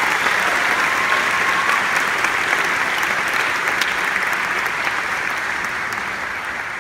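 Large audience applauding, the clapping easing off a little toward the end.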